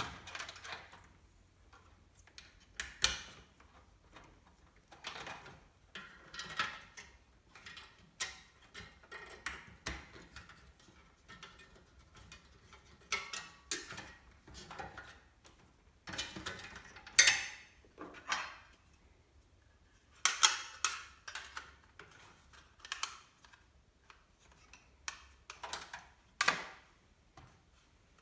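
Irregular clicks, taps and short scrapes of hands handling desktop PC parts during assembly: small plastic and metal pieces knocking and rubbing, with a sharper knock about two-thirds of the way in.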